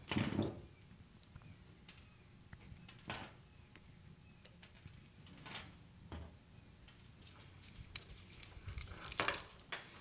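Scattered light clicks and clinks of short stripped wire pieces and hand tools being handled and set down on a workbench, a few single taps and then a quicker run of clicks near the end.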